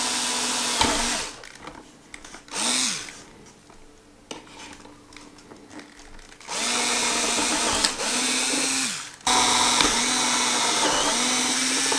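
Cordless drill boring holes through a plastic helmet, the motor running steadily in bursts of one to three seconds, each winding down when the trigger is let go. It runs, stops about a second in, gives a short burst near 3 s, falls quiet for a few seconds, then runs twice more for longer.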